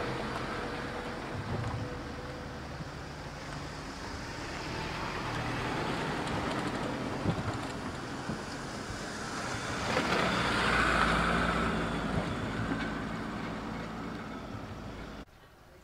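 Flatbed tow trucks driving slowly past, engines running with a steady rumble that swells loudest about ten seconds in as one passes close, then drops away abruptly near the end.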